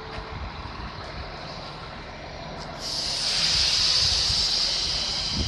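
Passenger train pulling into the station: a low rumble, then about three seconds in a loud hiss from its brakes starts suddenly and holds.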